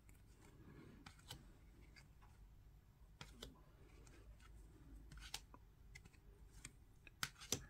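Faint handling of a stack of trading cards: a few soft clicks and slides, roughly every two seconds, as each card is moved to the front, over near-silent room tone.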